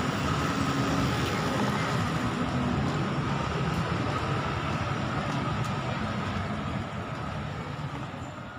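Outdoor crowd ambience: a steady rumbling hubbub with faint voices, fading out near the end.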